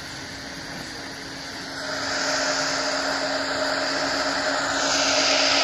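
Hiss of radio static from an amateur radio receiver tuned to the space station's voice channel, now carrying no voice. It grows louder about two seconds in and again near the end, over a faint steady hum.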